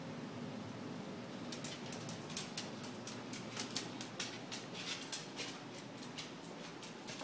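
A dog's claws clicking on a hardwood floor as it moves about, a quick, irregular run of light clicks starting about a second and a half in.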